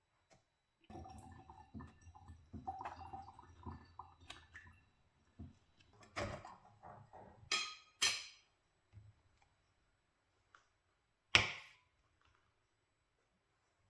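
Kitchen handling sounds: cookware and utensils being moved and set down for about four seconds. Then a few separate sharp clinks and knocks, the loudest one near the end.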